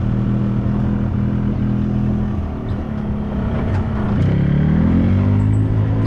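Golf cart running as it drives along, with a steady hum. The sound eases a little about halfway, then rises in pitch about four seconds in as the cart speeds up again.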